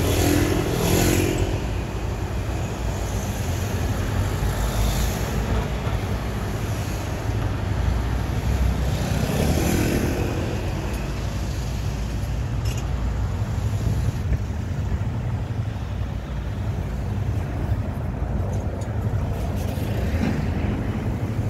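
Road traffic: cars and a motor scooter driving past close by over a steady low rumble, with louder pass-bys near the start and about nine to ten seconds in.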